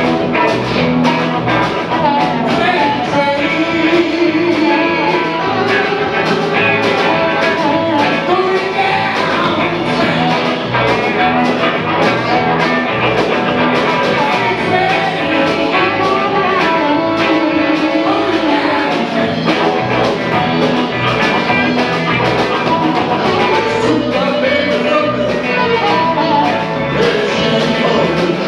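Live rock-and-roll band playing a blues-style shuffle on electric guitars, drum kit and keyboards with a steady beat, and a harmonica wailing through the vocal mic over it.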